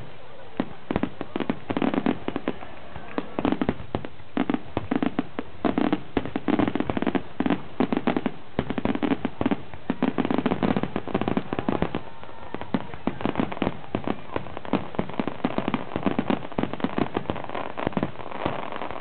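Aerial fireworks display: rapid volleys of bangs and crackling, many per second, coming in clusters with brief lulls between them.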